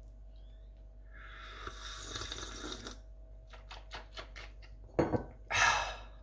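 Cast-iron tea set sounds: a hiss lasting about two seconds, then a run of quick light clicks, then a loud knock as the cup is set down on its cast-iron saucer about five seconds in, followed by a short rushing noise.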